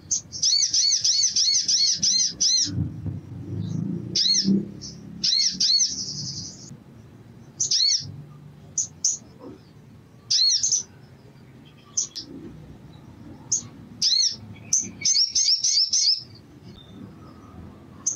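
Male olive-backed sunbird calling excitedly: bursts of sharp, high chirps repeated about four times a second, with short pauses between bouts and a brief buzzy trill about five seconds in.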